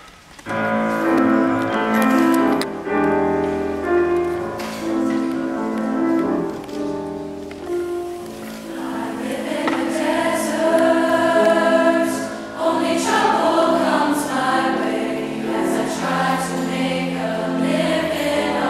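Mixed choir of male and female voices singing a cappella-style sustained chords in harmony, all entering together about half a second in.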